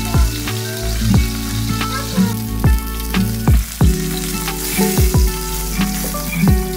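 Whole small round brinjals sizzling in hot oil in a pan as they are stirred. Background music with held notes and low thumps plays over it.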